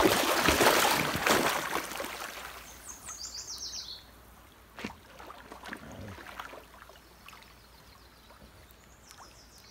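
English bulldog splashing hard through shallow river water as it charges in, loud for the first two seconds, then fading as it swims off into deeper water. A bird calls briefly about three seconds in, a quick run of falling notes.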